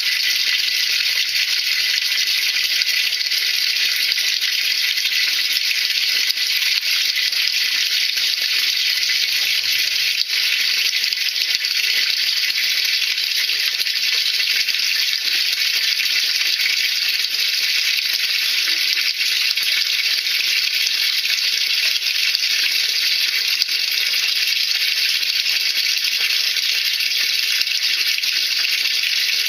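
Steady rush and churn of water in a washing machine tub during a sodium percarbonate tub-cleaning, continuous and even throughout.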